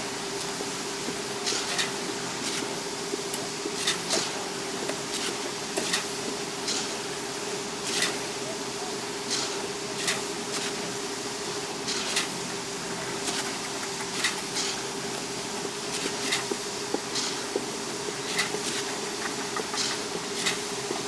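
A steady mechanical hum from construction machinery at a concrete pour, with irregular sharp clicks and knocks every second or two over it.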